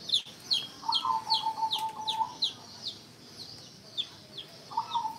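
Young chicks peeping: short, high calls that slide downward, about two a second. Twice, a longer, steady, slightly wavering note sounds beneath them.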